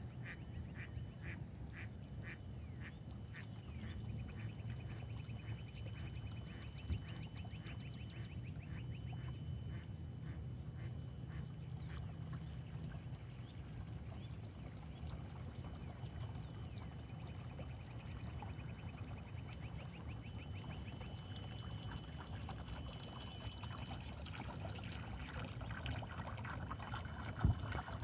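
Ducks quacking in a long run of repeated calls, about two a second, which fade out about halfway through, over a steady low background rumble.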